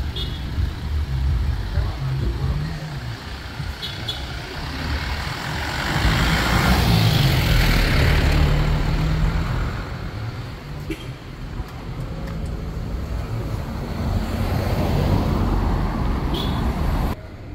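Street traffic: motor vehicle engines running with a steady low rumble, growing louder as a vehicle passes about six seconds in and again near the end, then dropping off suddenly.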